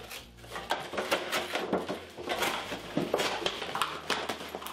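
A thin cardboard carton being handled and pulled down over a head, giving irregular crinkling, scraping and tapping sounds.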